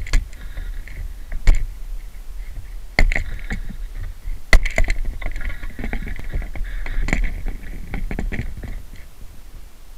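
Handling noise from a pole-mounted camera: a steady low rumble of wind and pole movement, with a few sharp knocks and scrapes, the loudest about a second and a half in and again about four and a half seconds in.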